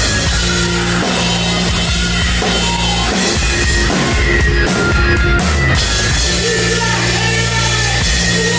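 Hard rock band playing live: drum kit, distorted guitar and bass, with a voice singing.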